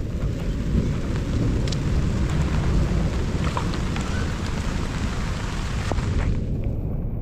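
Heavy rain falling steadily, with a deep continuous rumble underneath and a few sharp drop ticks.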